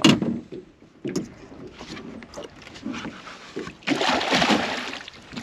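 Water splashing against a small boat, in a burst of about a second near the end, after a single knock at the start.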